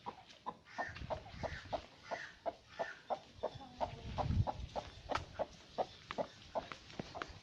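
Chicken clucking: a steady run of short clucks, about three a second. A brief low rumble comes about four seconds in.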